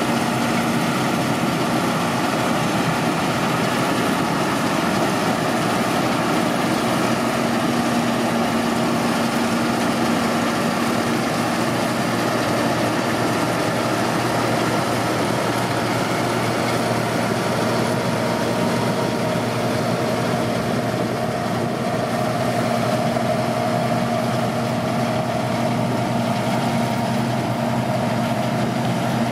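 John Deere 975 combine harvester running steadily while harvesting barley: the diesel engine and threshing machinery make a continuous hum. A higher note grows stronger over the second half.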